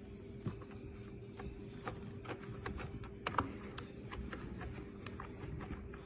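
Air Choice 3-in-1 evaporative air cooler's fan running quietly with a steady hum, with scattered light clicks and ticks throughout.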